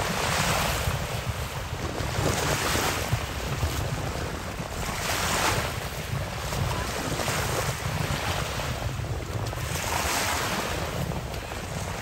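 Shallow sea water at the shoreline swishing in a regular rhythm, a swell about every two and a half seconds, over a low rumble of wind on the microphone.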